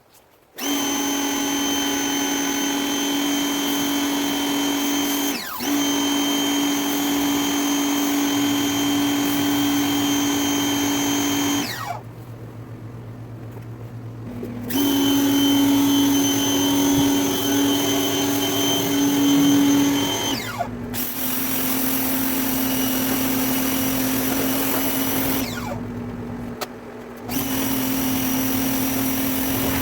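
Greenworks 2000 psi electric pressure washer running with a steady hum over the hiss of the water spray, driving a surface cleaner on concrete. The motor winds down and stops several times as the trigger is let go, and starts up again when it is squeezed.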